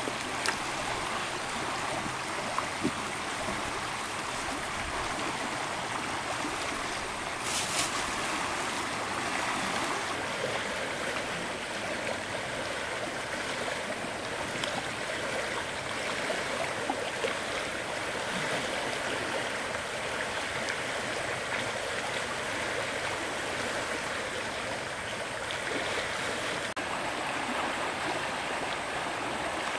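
Flowing stream water running steadily, with a few small clicks and knocks over it.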